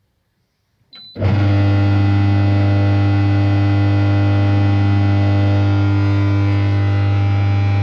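Bestway inflatable hot tub's air-bubble massage blower switching on: a short beep from the control panel about a second in, then the blower starts and runs with a loud, steady buzzing hum.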